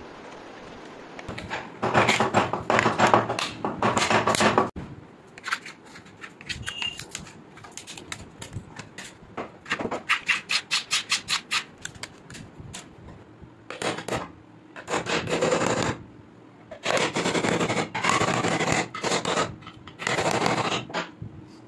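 Hand woodworking on plywood: loud rasping scrapes of a scraper spreading white wood glue, then runs of quick hammer taps (about six a second in one run) driving small nails into the plywood, among further stretches of scraping and rubbing.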